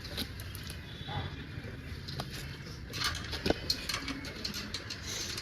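Scattered light clicks and taps of bicycle parts and hand tools being handled, with a quick run of them about three seconds in.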